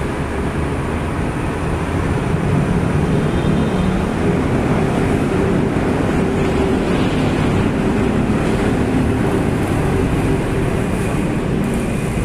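Steady running noise of a rapidKL light-rail train moving through an elevated station, with no sudden events.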